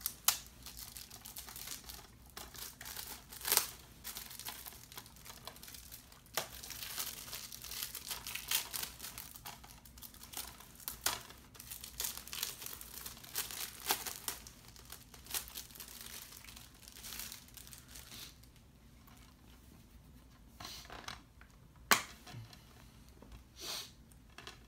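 Plastic shrink wrap being torn and peeled off a DVD case: crinkling and crackling, busiest in the middle, with a few sharp clicks, one of them near the end.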